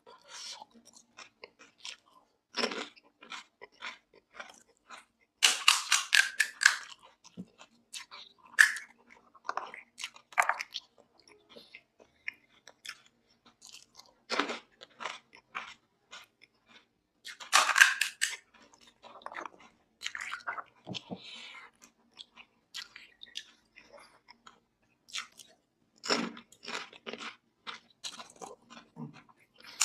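Close-miked eating: crisp pani puri shells being bitten and crunched, then chewed, in irregular bouts. The loudest crunching comes about five seconds in and again just before the twentieth second.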